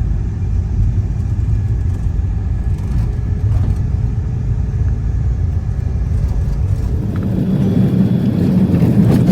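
Steady rumble of a car on the move, heard from inside the cabin: engine and road noise. About seven seconds in, the deepest rumble fades and a higher hum takes over.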